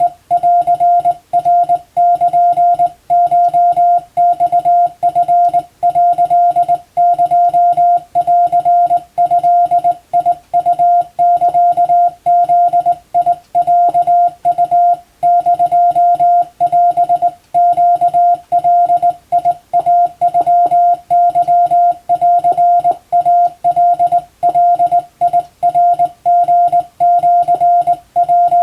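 Morse code (CW) sent by hand on a telegraph key: a single mid-pitched tone keyed on and off in quick dots and dashes, with brief gaps between characters and longer pauses between words. The text is Japanese Wabun code telegram practice.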